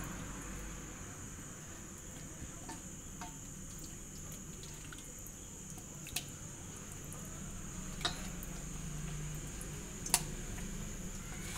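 Soft, quiet wet squishing of a hand working thick rice-flour batter over whole fish in a stainless steel bowl, with three sharp clicks against the bowl.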